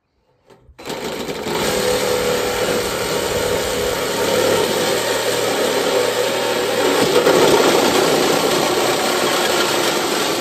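Cordless reciprocating saw cutting through thin sheet-metal stove pipe, starting about a second in: a loud, steady motor buzz with the rasp of the blade on the metal.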